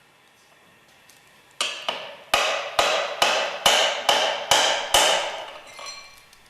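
Metal struck repeatedly with a tool: about nine sharp, ringing knocks at a little over two a second, starting a second and a half in and dying away with a brief ring.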